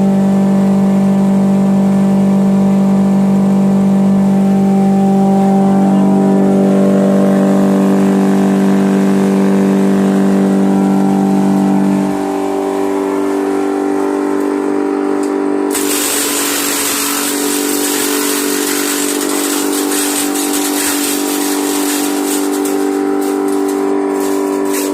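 Falcon electric bio shredder-cum-chipper running with a loud, steady hum of several tones, which shifts and drops in level about halfway through. About sixteen seconds in, a dense crackling noise joins as material is fed in and shredded.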